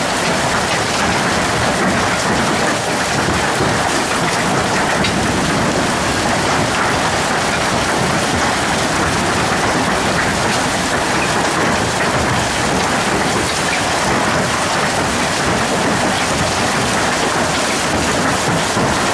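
Hail and heavy rain pelting down on a lawn: a dense, steady hiss and clatter that keeps up without a break.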